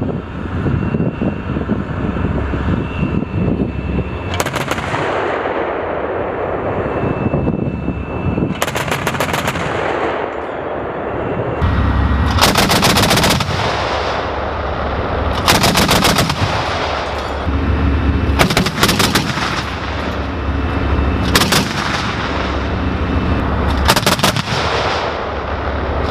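Gepard self-propelled anti-aircraft guns firing their twin 35 mm autocannons in short bursts of rapid fire. There are about seven bursts, a couple of seconds apart, each trailing off in an echo.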